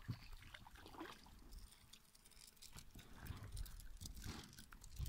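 Faint, scattered clicks and light knocks of fishing tackle and boat handling over a low rumble, while a small hooked fish is being reeled in after the bite.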